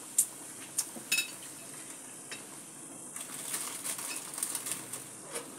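A pot of sayur asem at a rolling boil, bubbling, with a few sharp clinks of a utensil against the metal pot in the first half. The bubbling crackle grows denser about three seconds in.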